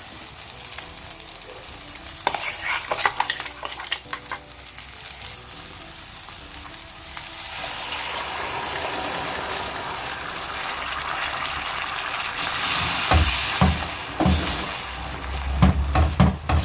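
Red chilli masala frying in ghee in a steel pan, sizzling louder as mutton stock is poured in. Then a wooden spatula stirs through it, with low knocks against the pan near the end.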